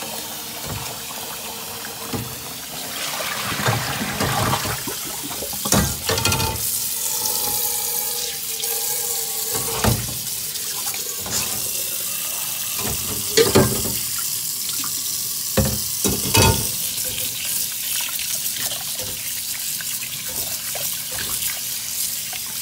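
Kitchen tap running steadily into a metal pot of water while pieces of salted fish are rinsed and swished by hand, splashing. A few short knocks and clatters against the pot stand out here and there.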